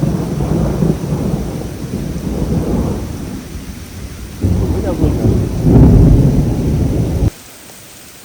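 Thunder rumbling over heavy rain. The thunder swells to its loudest about five to seven seconds in, then cuts off abruptly near the end.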